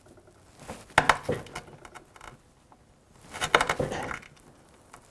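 Pressure flaking of flint with a copper-tipped tool on a wooden anvil: sharp clicks as small flakes snap off the edge. There are two about a second in and a quick cluster of several a little past the middle.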